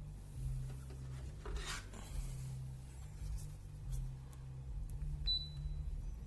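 Dreo Cruiser Pro tower fan running with a low hum that swells and fades about every two seconds. A brief rubbing sound comes about a second and a half in, and a short high beep about five seconds in.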